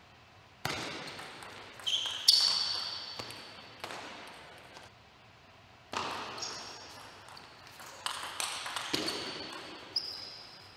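Table tennis play: the celluloid ball cracking off the bats and the table in sharp, echoing clicks, with short high squeaks of shoes on the sports floor.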